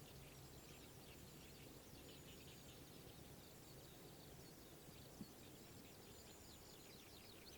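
Faint distant birdsong: many quick high chirps overlapping continuously, over a low steady background rumble. A single short click about five seconds in.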